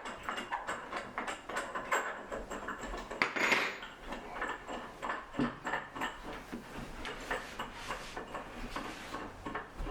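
Irregular light clinks and knocks of disassembled loom parts, wooden pieces and metal hardware, being handled and set down, with a louder scrape or clatter about three and a half seconds in.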